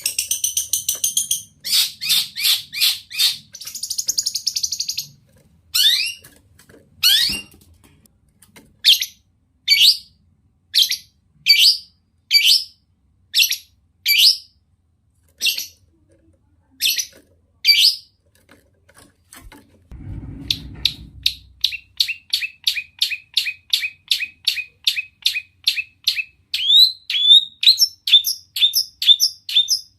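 Long-tailed shrike (cendet) singing: a harsh rapid chatter at first, then a string of single sweeping calls about one a second. After a pause and a brief low rumble about twenty seconds in, it switches to fast repeated notes, several a second.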